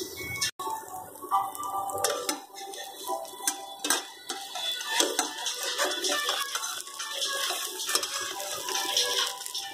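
Metal spatula clicking and scraping against a frying pan as an omelet is loosened in the pan, in irregular sharp taps that are loudest around the middle, with faint background music.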